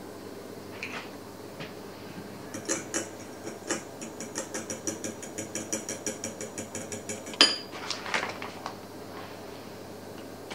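A fork beating egg yolks in a glass bowl, clinking quickly and evenly against the glass at about four strokes a second, then one sharper, louder clink and a few scattered softer knocks.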